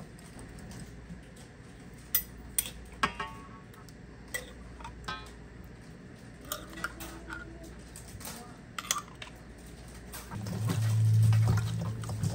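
Kitchen clatter of dishes and metal utensils: scattered light clinks and knocks, a few ringing briefly. Near the end a loud, steady low hum sets in.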